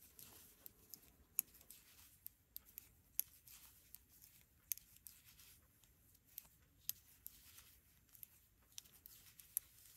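Faint, irregular light clicks of knitting needles and yarn as stitches are knit, over near-silent room tone.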